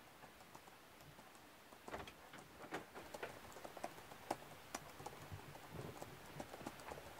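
Typing on a laptop keyboard: faint, irregular key clicks, coming thicker from about two seconds in.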